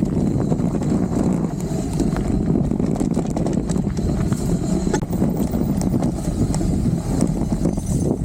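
Mountain bike rolling fast over a rough dirt trail: a steady rumble of the tyres with constant small knocks and rattles from the bike as it bounces over the ground.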